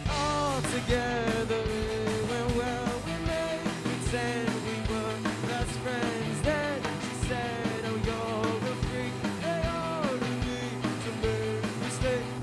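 Live rock band playing an upbeat song on two electric guitars, electric bass and a drum kit, with a melody line bending up and down in pitch.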